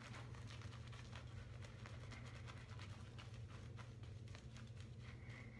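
Semogue 620 boar-bristle shaving brush working lather over the face and neck: faint, quick scratchy brushing strokes over a steady low hum.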